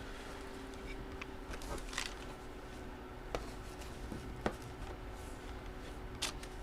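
Faint rustling and a few small clicks from hands handling items, over a faint steady hum.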